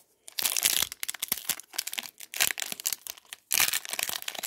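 Foil wrapper of an Upper Deck hockey card pack crinkling and tearing open in the hands, in two spells of crackling with a short pause about three seconds in.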